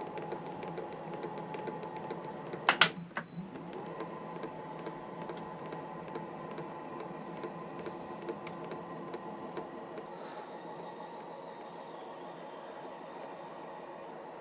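A split die, squeezed down and greased with lard, being run along the worn M10×1.5 left-hand thread of an MN-80 lathe's cross-feed lead screw to cut it down to one even diameter. It makes a steady mechanical running noise with faint rhythmic ticking and a high whine, and two sharp knocks come about three seconds in.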